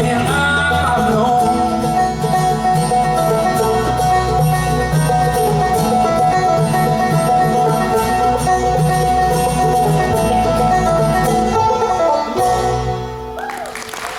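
Live bluegrass string band playing, with banjo and guitar, the song ending on a held final chord about a second before applause starts.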